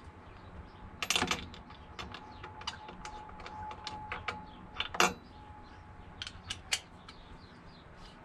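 Metal clicks and clinks of a socket wrench and spark-plug socket being handled and fitted while a new spark plug goes into a small two-stroke leaf blower engine. There is a quick cluster of clicks about a second in and one sharp click near the middle.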